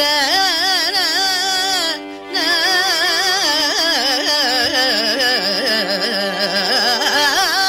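Carnatic music in raga Shankarabharanam, a female voice and violin together: a melodic line full of gamaka ornaments over a steady drone, with a short break about two seconds in.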